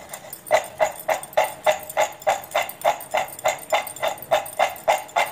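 Fried cashews being shaken in a steel bowl with salt and spice powders, rattling against the steel in a steady rhythm of about four knocks a second.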